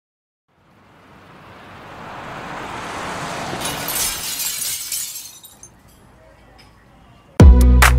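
A noise swell rises over about three seconds into a bright hissing rush, then fades away. About seven seconds in, music comes in with a heavy bass hit and a quick beat: the start of a pop song's intro.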